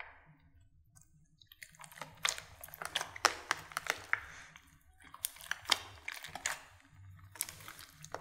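Clear slime studded with cubes of carved soap being squeezed and kneaded by hand, giving sticky crackles and wet clicks. The crackling starts about a second and a half in and comes in three spells with short pauses between.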